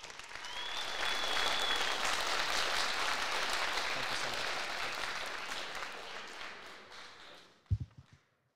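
Audience applauding, swelling quickly and dying away near the end, with one high held whistle in the first couple of seconds and a short low thump near the end.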